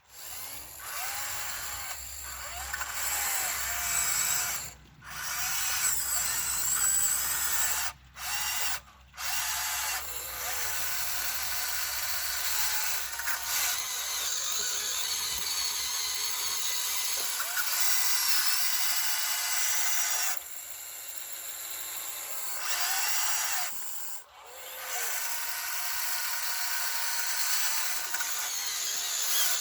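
Electric motors and gearing of a Huina 1599 RC excavator whirring, with the pitch rising and falling as the motors speed up and slow down. The whir stops briefly several times before starting again.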